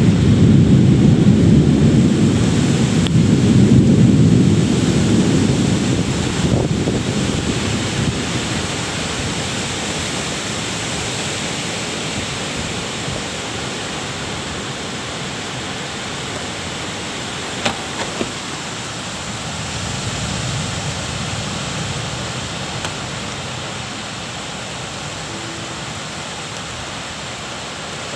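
Thunder rumbling over steady rain: a loud low rumble in the first few seconds that dies away over several seconds, then a weaker rumble later on, with the hiss of rain throughout.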